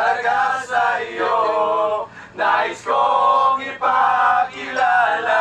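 A group of young men and women singing together without instruments, holding loud sustained notes in short phrases, with brief breaks about two seconds and nearly four seconds in.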